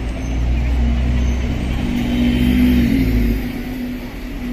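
City bus driving past close by, its engine hum growing louder to a peak, then dropping away about three seconds in.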